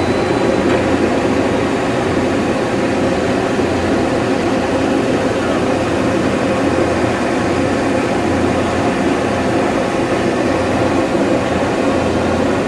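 Loud, steady hum and din of a busy exhibition hall, with no distinct drilling or riveting strokes standing out.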